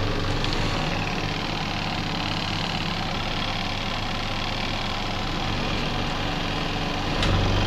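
Caravan twin-tub washing machine running, its motor humming steadily with a whirring, rattling noise over it. About seven seconds in there is a click and the hum grows louder and deeper.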